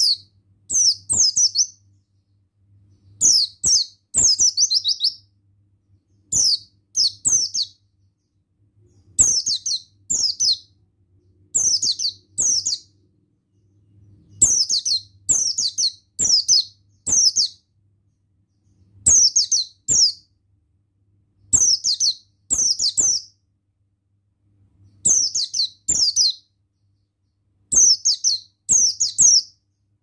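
Buxtoni white-eye (pleci) singing: short, high, rapid twittering phrases of quickly falling notes, repeated about every two to three seconds.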